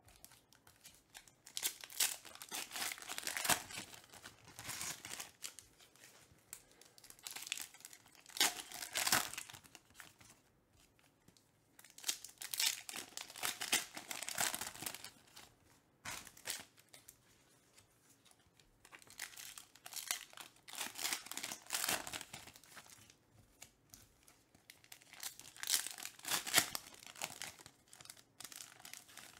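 Foil trading-card pack wrappers crinkling and tearing as they are ripped open by hand, in bursts of a few seconds with short quieter pauses between.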